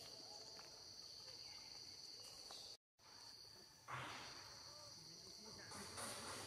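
Insects droning steadily in a high, even pitch, cutting out for a moment near the middle. Two short rustling noises come about four and six seconds in.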